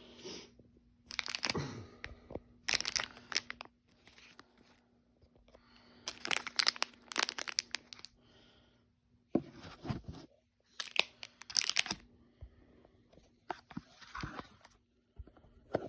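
Clear plastic packaging of a disposable vape crinkling and crackling as it is handled, in several separate bursts, over a faint steady hum.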